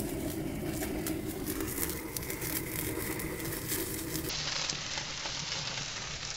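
Gas torch running steadily into an offset smoker's firebox while the logs and grease catch, with crackling from the fire. About four seconds in, the torch's steady tone stops and the fire is heard burning on its own.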